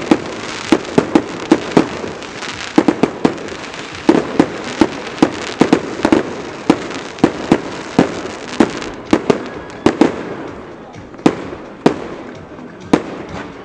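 Fireworks bursting overhead in quick succession: a string of sharp bangs, about three a second, over a crackling hiss. The bangs grow sparser after about ten seconds.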